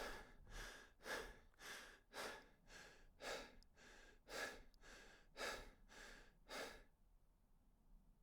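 A person breathing hard in a steady rhythm, about two breaths a second, the strokes alternating stronger and weaker. It stops about seven seconds in, leaving a faint hiss.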